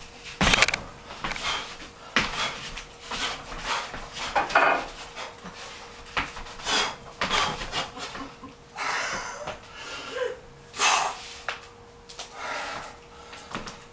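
A person working through a kung fu tiger form: sandalled feet stepping and stamping on a wooden floor, mixed with forceful breaths, in a string of short, uneven bursts.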